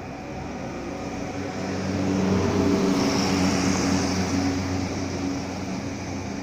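A motor vehicle passing by, its engine noise swelling to its loudest about two to four seconds in, then fading away.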